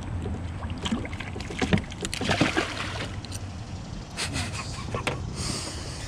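A hooked bowfin (mudfish) splashing beside a bass boat as it is lifted from the water and handled, with scattered knocks and rustles on the boat. A low steady hum runs underneath.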